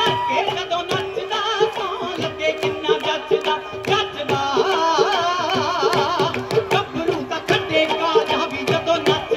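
Live bhangra folk music: a dhol beats a steady rhythm under a held drone, with a high melody line that wavers up and down in pitch in the middle of the passage.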